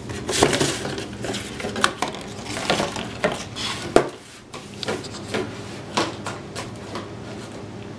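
A cat's paws scratching and knocking inside a cardboard drinks box as it bats at an ice cube, with the ice cube clattering against the cardboard. The scrapes and knocks come thick and irregular, with a sharp knock about four seconds in, and thin out near the end.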